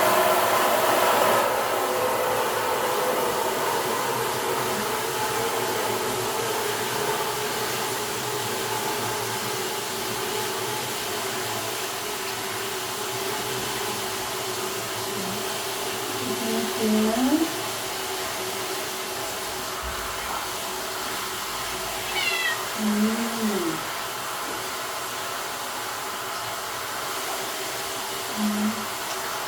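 A domestic cat meows three times, with the middle call rising and then falling, over a steady rush of running water being run for its bath.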